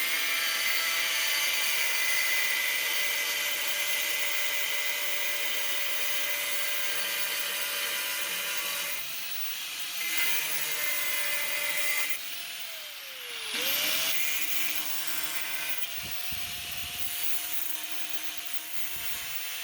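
A power tool's motor running at a steady speed with a high whine. About two-thirds through it slows sharply and picks back up, and near the end it winds down.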